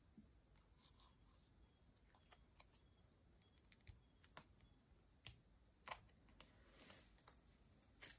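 Near silence with faint, scattered light clicks and taps as folded paper pieces are handled, pressed together and glued.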